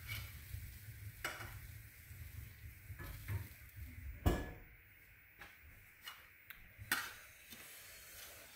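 Steak sizzling faintly on top of a wood stove, with scattered clinks and taps of a metal fork against the plate and stove as it is lifted off. The sharpest knock comes about four seconds in, after which the hiss dies down.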